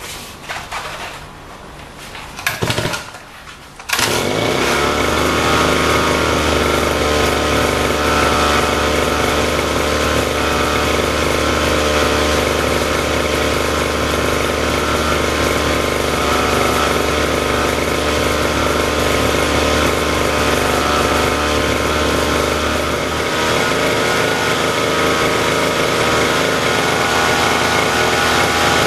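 A few knocks of handling, then a small lawn mower petrol engine catches about four seconds in and runs steadily at a constant speed. Its low hum eases a little near the end.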